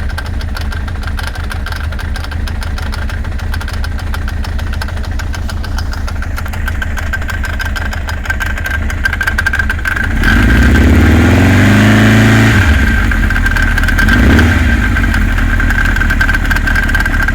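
Kawasaki GPZ900R's inline-four engine idling, revved up and back down about ten seconds in, then blipped briefly a couple of seconds later. A steady high whine sits over the engine throughout. The bike is being run to show an abnormal noise.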